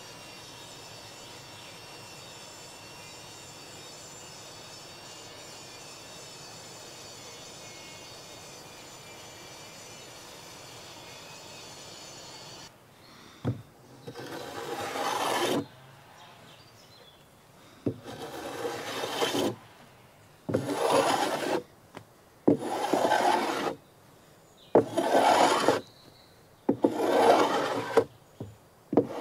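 Hand plane shaving a wooden deck board: a knock, then six long strokes about two seconds apart, each growing louder as it goes, starting about halfway in. Before that there is only a steady faint outdoor hiss.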